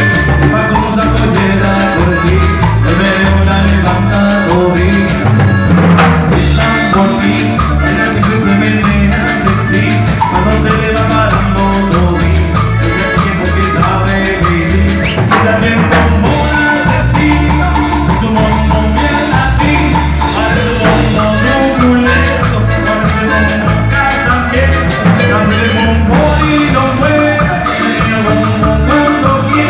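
Live Latin dance music from a band with acoustic and electric guitars and a drum beat, playing steadily.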